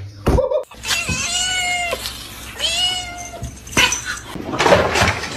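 A cat meowing twice, two long drawn-out meows of about a second each, followed by a stretch of rustling and knocking noise.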